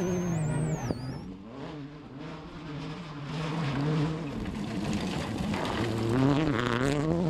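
World Rally Car engine under hard driving: the revs drop at a lift or gear change, a sharp click comes about a second in, then the revs climb again in steps through the gears toward the end.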